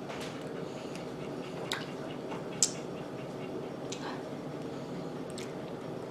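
Someone chewing strawberries, with a few short wet clicks and squishes from the mouth, over a steady low hum.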